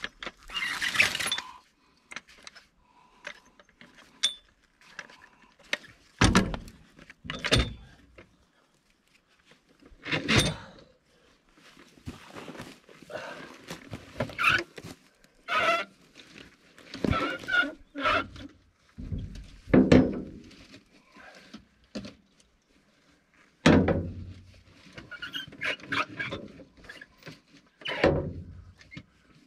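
Irregular thunks and metal clanks with some scraping, a few seconds apart, from hand work with a jack and wheel under the rear of an old pickup.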